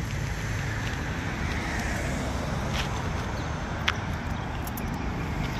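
Steady road traffic noise from a city street, with a couple of faint clicks around the middle.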